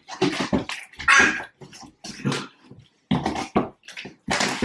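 Cardboard box rustling and scraping in several short, irregular bursts as a small child climbs into it.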